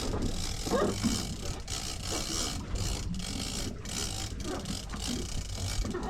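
Lever-drag fishing reel being cranked steadily, its gears whirring and clicking in a rhythmic pattern, over the low, steady drone of the boat's engines.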